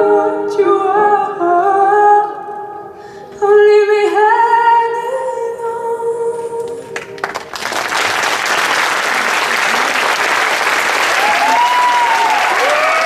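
A sung melody over music ends about halfway through. An audience then applauds steadily, with a few cheering calls rising and falling over the clapping near the end.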